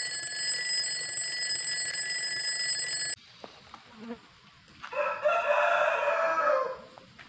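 An alarm-clock bell rings steadily for about three seconds and cuts off abruptly. About two seconds later a rooster crows once, a call of roughly two seconds that drops in pitch at the end.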